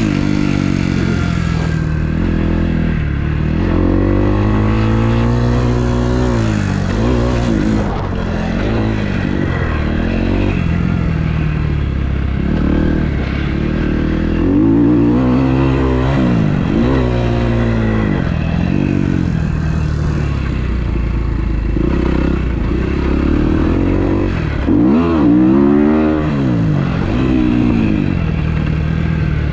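Freshly rebuilt 2012 Kawasaki KX250F single-cylinder four-stroke engine revving up and dropping back again and again as the bike is ridden around a motocross track, the pitch climbing and falling with each burst of throttle.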